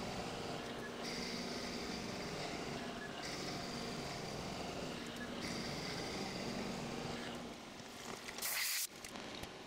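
Milling machine drilling aluminium blocks under flood coolant: a steady mechanical running whose tones drop out and return about every two seconds. A short hiss comes near the end.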